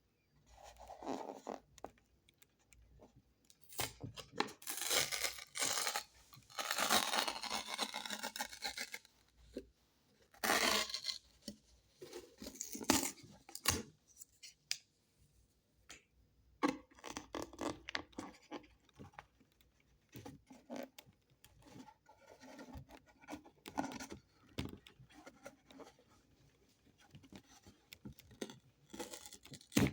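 Paper seal on a mixed-nuts container being torn and peeled back in irregular scratchy bursts, loudest from about four to nine seconds in, then smaller scrapes and rustles.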